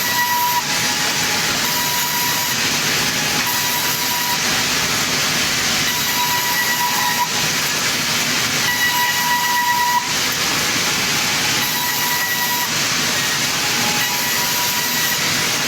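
Sawmill circular saw cutting timber: a loud, steady rushing noise, with a whining tone that comes and goes every couple of seconds.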